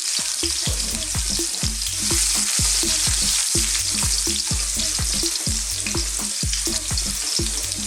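Garlic and ginger sizzling in smoking-hot sunflower oil in a wok, a steady frying hiss. Under it runs an even rhythm of low thuds, about three a second.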